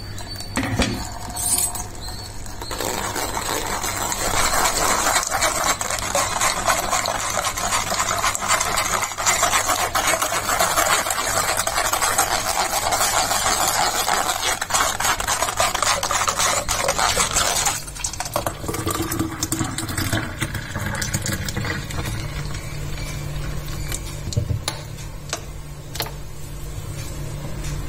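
A metal spoon stirring and scraping wet blended tomato pulp against a stainless steel mesh strainer: a rapid, scratchy scraping that runs for about fifteen seconds and stops abruptly. Afterwards it is quieter, with a low hum and a few clicks.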